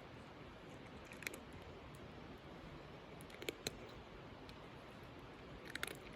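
A cat eating on a bench: a few faint, short crunching clicks as it chews, about a second in, twice at around three and a half seconds, and a quick cluster near the end.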